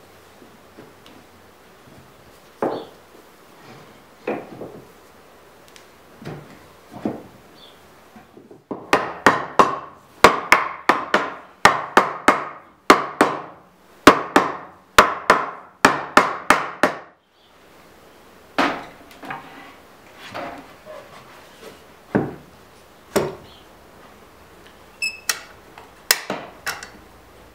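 Soft-faced mallet striking a wooden block to drive dowelled beech parts together: a quick run of blows, about two or three a second, from roughly nine seconds in for about eight seconds. Before and after it come separate knocks of wooden pieces being handled, and light clicks near the end as a bar clamp is tightened.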